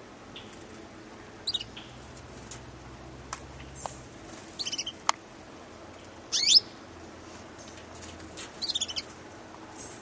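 Young Russian canaries giving short chirp calls, each a quick high note sweeping down in pitch, four in all, the loudest just past the middle. A few sharp clicks come between the calls.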